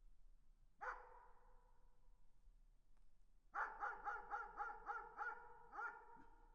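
A dog barking in the distance: a single bark about a second in, then a quick run of about eight barks, each trailing an echo.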